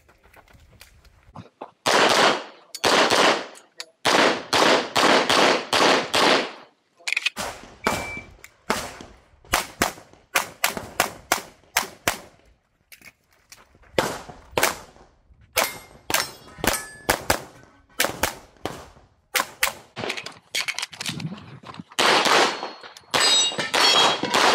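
9mm BUL Armoury 1911 pistol firing rapid strings of shots, many in quick pairs, with short pauses between groups. A brief metallic ring follows a few of the shots.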